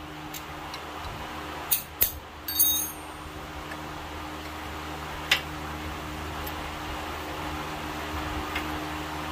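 A few sharp metallic clicks and one short ringing clink as the front disc brake pads and their caliper clips are worked by hand with a tool, trying to free pads that are hanging up in the clips. A steady low hum runs underneath.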